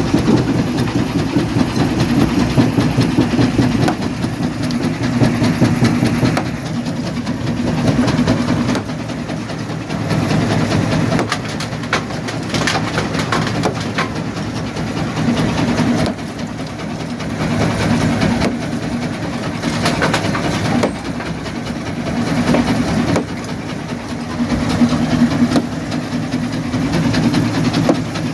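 Quarry jaw crusher running with a steady heavy rumble that swells and eases every few seconds. Sharp cracks and knocks of rock breaking between the jaws come in clusters about halfway through and again a little later.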